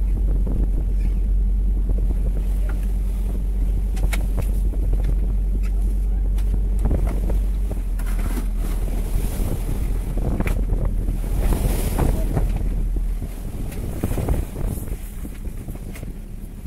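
Fishing boat at sea: a steady low rumble with wind on the microphone and water noise, which weakens about thirteen seconds in. A few light knocks from the line and gear are heard over it.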